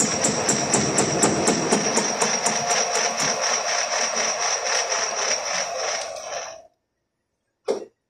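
Machine tool cutting the teeth of a steel gear blank: a steady whine with a regular stroke about four times a second. It cuts off abruptly near the end, followed by one short click.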